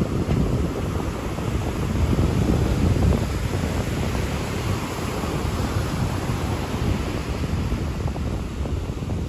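Ocean surf breaking and washing up a sand beach, mixed with wind rumbling on the microphone; a steady noisy wash that swells a little two to three seconds in.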